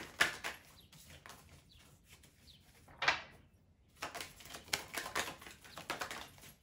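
A deck of tarot cards being shuffled by hand: quick runs of papery card flicks. A flurry at the start, one sharp snap about three seconds in, then a dense run of flicks for the last couple of seconds.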